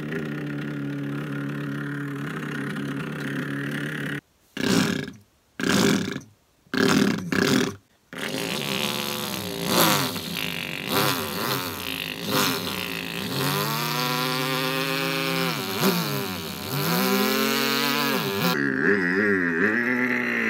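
A person's voice imitating a small engine: a steady buzzing hum, then three short bursts with silence between them, then a continuous running drone whose pitch wavers and swoops down and back up, about two-thirds of the way through.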